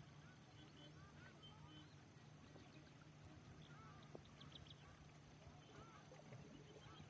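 Faint chorus of many small bird calls, short arched chirps scattered throughout, over a low steady hum.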